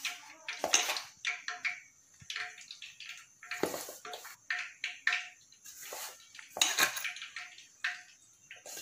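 A hand mixing sliced okra into a wet, spiced jowar-flour coating in a metal bowl: squelching and scraping, with irregular knocks and clinks against the bowl a few times a second.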